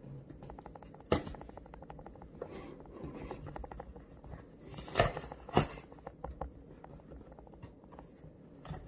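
Cardboard case being torn open by hand: scratchy ripping and crackling of the corrugated cardboard, with a sharp snap about a second in and two more around five seconds in as the flaps tear away.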